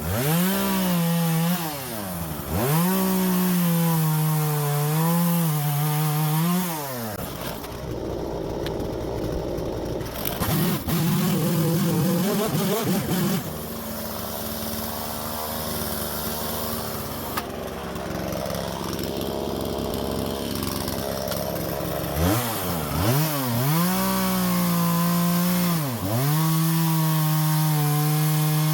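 Husqvarna 120 Mark II two-stroke chainsaw with a sharp new chain, revving up and down for several seconds, then dropping in pitch and running under load for about fifteen seconds while cutting through wood, then revving up and down again near the end.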